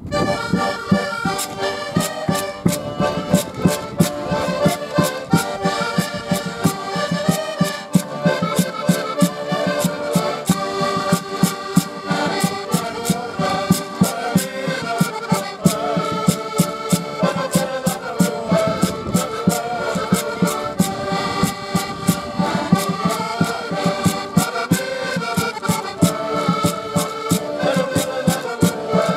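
An ensemble of diatonic button accordions playing a lively traditional tune together, full chords and a running melody, with sharp percussion strikes keeping a steady beat.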